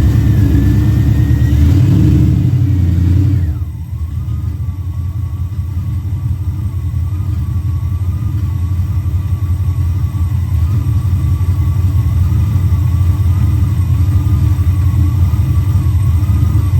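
Mopar 340 small-block V8 running, held at higher revs for the first few seconds, then dropping back to a steady idle about three and a half seconds in.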